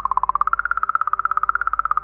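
A high electronic tone pulsing rapidly, about fifteen pulses a second. Its pitch wavers, dips, then steps up about half a second in.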